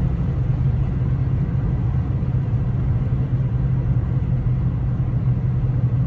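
Steady low rumble of a car driving at motorway speed, heard from inside the cabin: engine and tyre noise without change.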